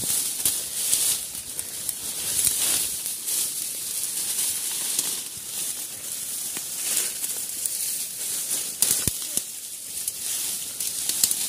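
Dry grass stalks and leaves rustling and crackling as someone pushes through dense undergrowth, in an irregular run of small crackles.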